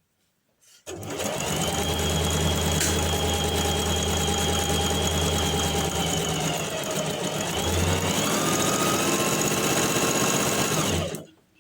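Electric sewing machine running a seam. The motor starts about a second in and runs steadily. Its speed dips and picks up again around seven seconds in, and it stops suddenly just before the end.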